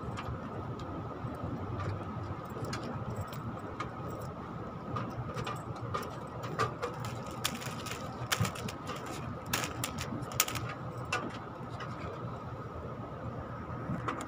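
Scattered clicks and rustles of hands working electrical wiring close to the microphone, thickest in the middle, over a steady background hum.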